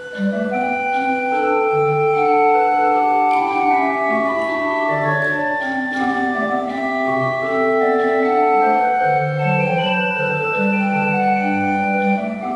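Organ playing slow, held chords, with several lines of long notes moving over occasional low bass notes.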